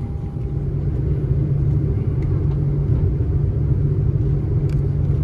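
Cabin noise inside an Airbus A330-300: a steady low rumble from its Rolls-Royce Trent 700 engines and the airframe, growing louder about a second in.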